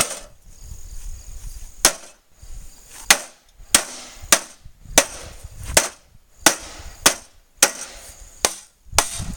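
An aluminum bat striking a Panasonic microwave's metal casing again and again: about a dozen sharp blows, roughly one every half second to second.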